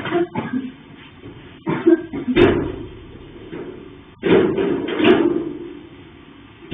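Loud knocks and bangs in three bunches, about two seconds apart, each with a short ringing tail.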